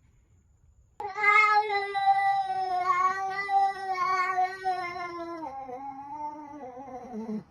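A domestic cat giving one long, drawn-out yowl lasting about six seconds, starting suddenly, holding a steady pitch and sliding lower near the end.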